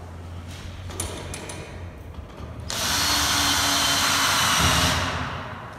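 Cordless drill driving a screw through curved steel framing track into a plywood jig. It starts with a few light clicks of handling, then runs under load for a little over two seconds and winds down near the end.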